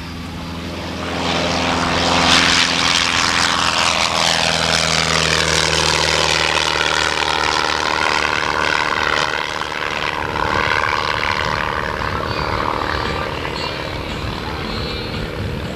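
Single-engine light propeller airplane taking off at full power: the engine drone swells loud about a second in as the plane passes, its pitch dropping slightly as it goes by, then it carries on as a steady drone with a sweeping, phasing quality as the plane climbs and flies.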